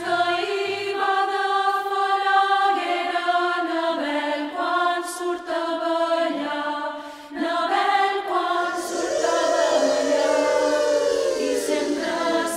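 Women's choir singing sustained chords in close harmony, with a brief break about seven seconds in. Near the end many voices slide downward in pitch together.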